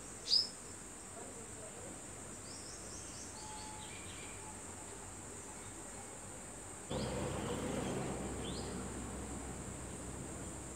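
Insects trilling steadily at a high pitch, with bird chirps over them: one loud falling chirp near the start and a run of short chirps a few seconds later. About seven seconds in, a low rushing noise comes in suddenly and stays.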